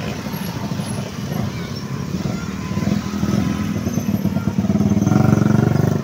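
Motor scooters passing in a stream of traffic, their small engines running; one comes close and grows louder toward the end.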